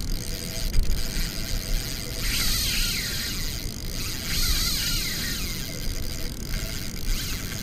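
Fishing reel's drag buzzing in uneven pulses as a hooked fish pulls line off against a bent rod, over steady water and wind noise on the microphone.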